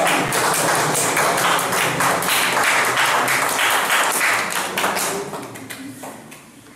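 Applause from a small group of people clapping by hand, thinning out and fading near the end.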